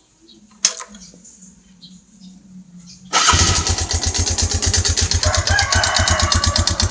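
A sharp click, then about three seconds in the Yamaha Vega R 110's single-cylinder four-stroke engine starts suddenly and settles into an even, pulsing idle. The owner calls the engine very rough ("kasar banget").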